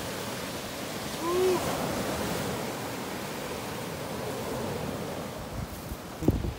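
Ocean surf breaking and washing up the beach: a steady rush of waves that swells about a second in.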